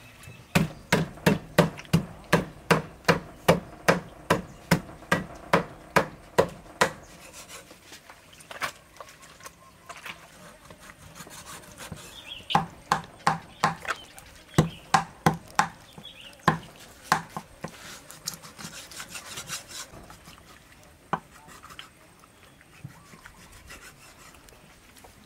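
Cleaver chopping through raw meat on a thick round wooden chopping block. A quick run of even strikes, about three a second, is followed by a quieter pause, a second run of strikes, and a few scattered, softer cuts near the end.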